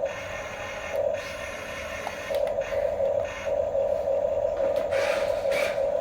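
Geared electric drive motor of a Huina RC toy construction vehicle whining in on-and-off stretches, with short noisy bursts near the end.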